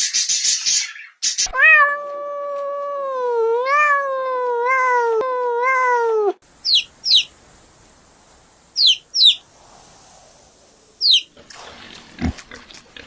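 A cat giving one long, wavering meow of about five seconds, followed by a few quick, high chirps from a bird.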